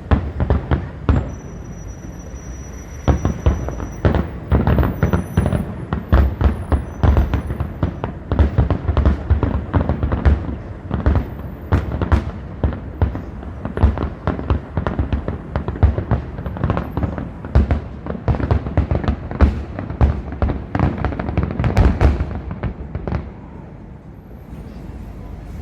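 Fireworks display: a rapid, continuous barrage of bangs and booms from shells bursting, densest through the middle and stopping about 23 seconds in.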